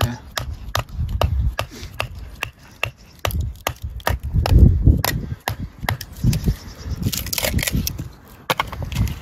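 Wooden mallet knocking on the spine of a knife to baton it down through a small block of firewood, a quick series of sharp wooden knocks about three a second as the kindling splits. Bursts of low rumble come in between, heaviest about halfway through.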